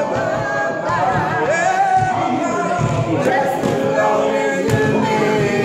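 A small group of men singing a cappella, several voices in harmony, with held notes and slides between pitches.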